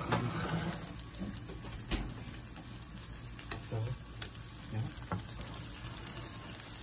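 Eggplant omelette patties sizzling in hot oil in a frying pan, with a few sharp taps and scrapes of a silicone spatula as they are pressed and turned.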